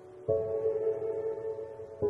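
Background music of sustained, ringing chords; a new chord starts about a quarter second in and slowly fades.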